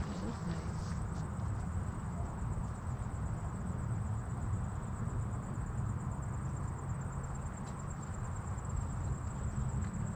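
Insects trilling steadily in a high, evenly pulsed chirr, over a low rumble of wind on the microphone.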